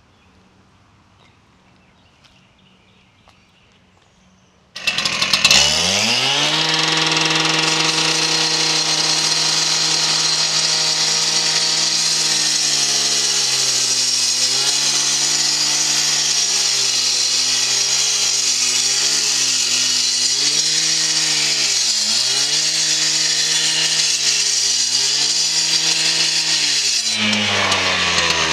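Two-stroke gas cut-off saw with a disc blade starts up loud about five seconds in and revs to a high, steady speed. Its pitch then dips and recovers again and again as the blade bogs in the concrete under load. Near the end the revs fall away and then climb again.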